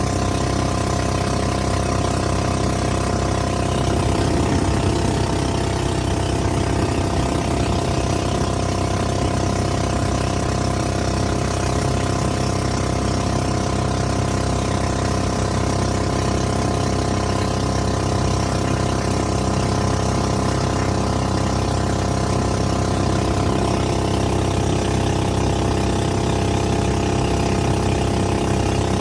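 The 13 hp engine of a small fiberglass boat running steadily at an even pitch, with a brief rougher patch about four to eight seconds in.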